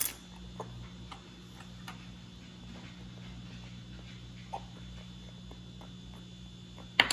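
A child's faint, sparse mouth clicks and smacks, made as pretend eating noises for a toy dog, over a steady low room hum. A loud, sharp clatter comes near the end.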